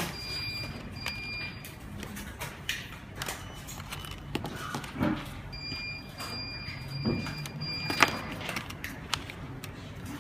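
Clicks and knocks of an alarm panel's plastic housing being handled, the sharpest knock about eight seconds in. A high-pitched electronic beep sounds twice: briefly at the start, then for about two seconds from halfway through.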